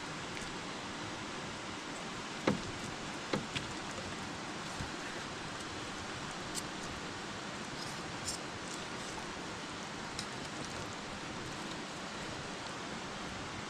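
Campfire burning with a steady hiss and scattered crackles and pops, the loudest pop about two and a half seconds in.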